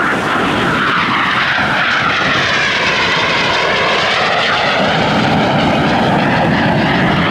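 An Aermacchi MB-339 PAN jet's single Rolls-Royce Viper turbojet roars steadily in flight as it passes. A hollow, sweeping tone in the roar dips lower about halfway through and then rises again.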